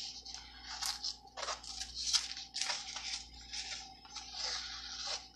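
Crinkling and rustling of a flexible plastic adhesive stencil transfer sheet as it is handled, flipped over and laid down on a board, in a run of short crackly bursts.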